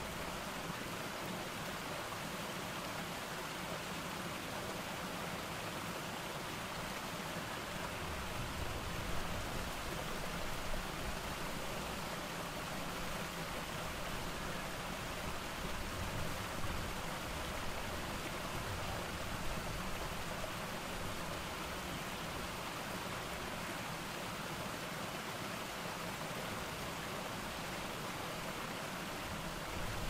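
Small garden cascade of water spilling over rock ledges into a shallow rocky stream, a steady even splashing and rushing.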